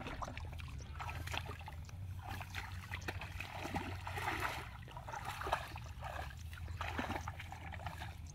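Feet wading through shallow water and mud in a flooded rice paddy: a run of small, irregular splashes and squelches.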